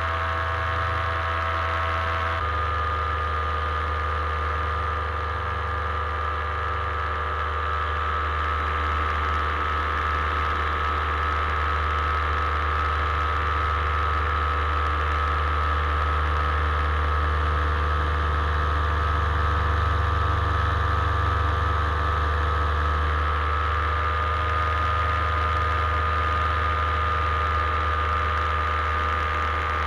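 Paramotor engine and propeller running steadily at a constant throttle in flight, its note shifting slightly about two seconds in.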